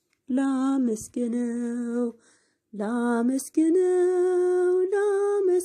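A woman sings an Ethiopian Orthodox hymn (mezmur) in Amharic without accompaniment. She sings drawn-out notes in short phrases with brief breaks between them, ending on a long held note.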